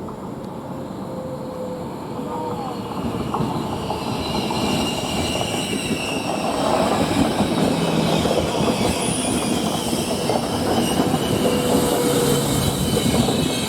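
Train passing on the rails, with wheels squealing in high thin tones over a steady rumble, getting louder over the first several seconds and then holding.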